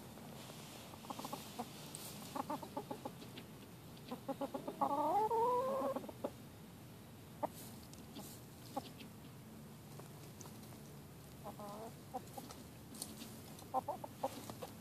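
Backyard hens clucking in short runs, with one longer call rising in pitch about four to six seconds in, and a few sharp ticks in between.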